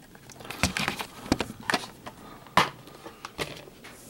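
Plastic DVD case being handled and opened: a series of sharp clicks and clacks, the loudest about two and a half seconds in.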